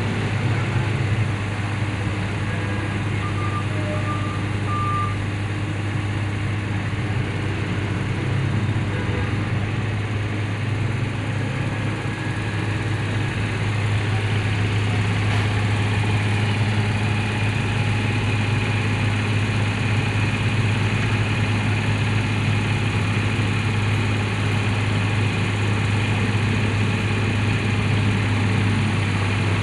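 Mini excavator's diesel engine running steadily, with three short high beeps about three to five seconds in; the engine gets a little louder about halfway through.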